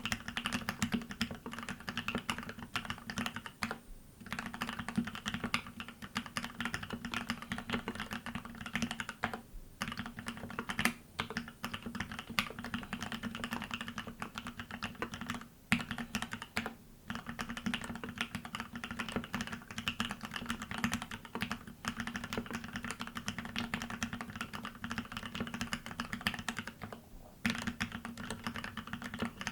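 Continuous typing on a TX108se mechanical keyboard with a brass plate, Gateron Ink Black linear switches lubed with Krytox 105 and spring oil, and EnjoyPBT 9009 PBT keycaps. It is a dense run of keystroke clacks, broken by a few short pauses.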